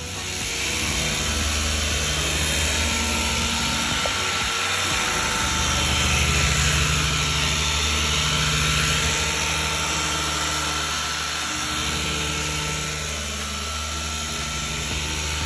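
An electric power tool running steadily with a motor whir; its high whine sags lower and comes back up around the middle.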